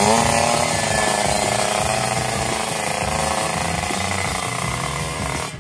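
Two-stroke Kawasaki Ninja drag-bike engine firing up, its pitch rising as it catches. It then runs fast and steady with a slight waver in pitch, and cuts out sharply near the end.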